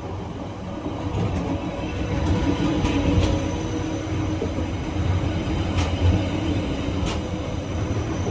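Haeundae Blueline Park beach train, a small electric rail car, running past at close range. Its low rumble grows from about a second in, with a few faint clicks from the wheels and rails.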